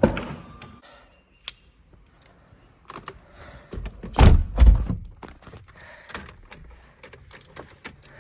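Lamborghini Gallardo's door being opened and shut as someone gets in: a sharp click at the start, small knocks and rustling, then a heavy low thunk of the door closing about four seconds in.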